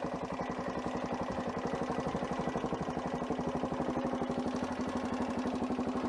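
Adventure motorcycle engine running steadily at low revs, a constant even beat of firing pulses.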